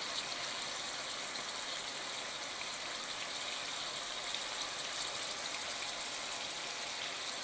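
Browned ground breakfast sausage frying in a nonstick skillet, a steady, even sizzle.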